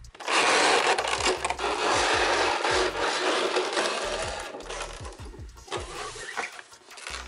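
Cardboard box and packaging rubbing and sliding against each other as the box is opened and handled: a loud scraping rustle that starts just after the beginning and fades out over the next few seconds. Background music with a low bass line plays underneath.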